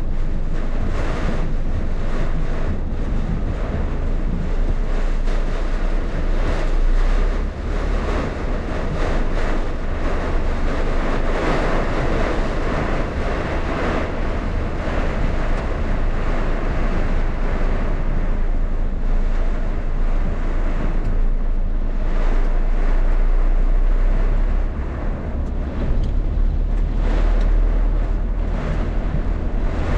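Heavy rainstorm: a steady rush of pouring rain and wind, with a low wind rumble on the microphone.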